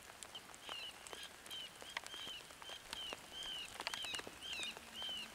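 Electronic predator caller playing through its speaker: a looped series of short, high, arching chirps, about two to three a second. Scattered sharp ticks of raindrops fall among them.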